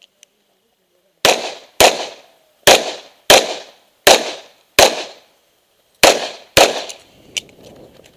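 Revolver fired eight times in four quick double taps, each pair about half a second apart, with sharp loud reports and a short echo after each. A couple of light clicks near the end as the revolver is reloaded.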